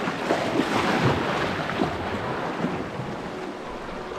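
Sea waves washing and surging among shoreline rocks, with wind buffeting the microphone. The wash swells louder for a moment about half a second in, then settles.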